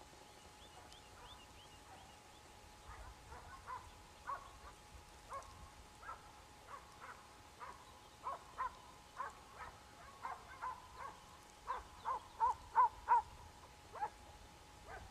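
Distant hunting hound baying on a hare's scent in a long run of short yelps, irregularly spaced and loudest about twelve to thirteen seconds in.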